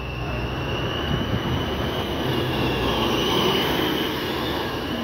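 A transit bus's diesel engine running as the bus pulls away and passes close by, with a high whine over it. The whine rises slightly in pitch and everything grows loudest about three and a half seconds in.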